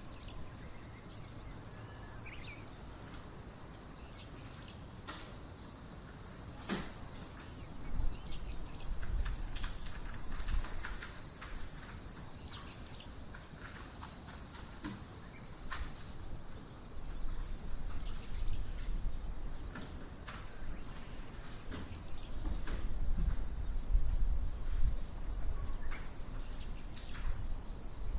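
Dense chorus of calling insects: a continuous, unbroken high-pitched trill that holds steady throughout, with faint scattered ticks and a low rumble underneath at times.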